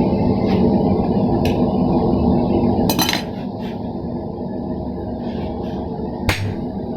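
Gas forge burner rushing steadily, with sharp metallic clinks of steel and tongs. Two clinks are loudest, one about three seconds in and one near the end. The burner sound drops in level about three seconds in.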